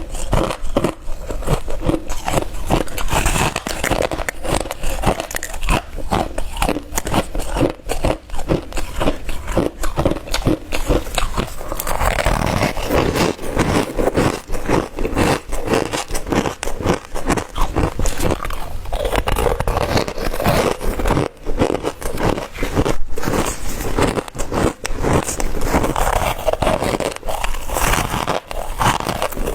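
Crushed ice being bitten and crunched close to the microphone: a dense, continuous run of crisp crunches, several a second.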